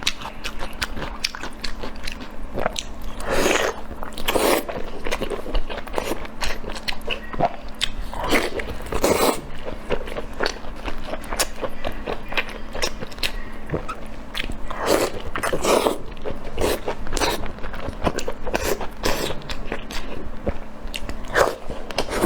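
Close-miked ASMR eating: a person biting and chewing crunchy food, with many quick clicks and a longer mouth sound every few seconds.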